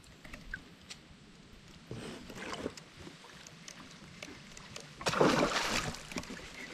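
Quiet water and kayak sounds, then about five seconds in a hooked bass splashes and thrashes at the surface for about a second.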